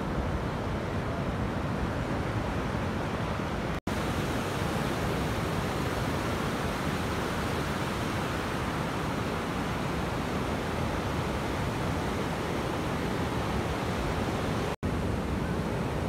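Ocean surf breaking and washing up the beach as a steady rushing noise. The noise cuts out for an instant twice, about four seconds in and near the end.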